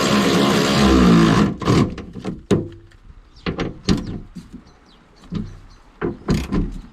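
A steady whirr cuts off about a second and a half in. A string of sharp clicks and knocks follows, about nine in all, from the new boot latch of a 2009 Vauxhall Insignia being fitted and worked by hand.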